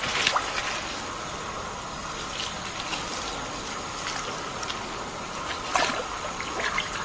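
Water trickling and splashing steadily, with sharper splashes just after the start and again around six seconds in.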